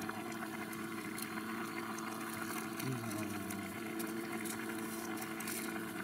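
Pot of milky soup pasta boiling, bubbling steadily over a steady low hum, with a few faint clicks as slices of cheese are laid in with chopsticks.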